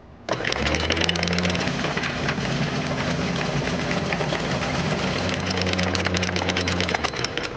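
Lewmar V3 electric anchor windlass running, hauling anchor chain over its gypsy: a steady motor hum with the rapid clatter of chain links. It starts about a third of a second in and stops about seven seconds in.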